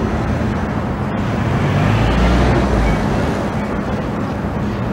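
Steady city street traffic noise, with a car engine running close by and swelling for about a second in the middle.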